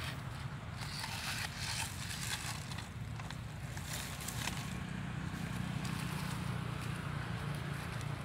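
Footsteps rustling and crunching through dry leaf litter for the first few seconds, over a steady low hum.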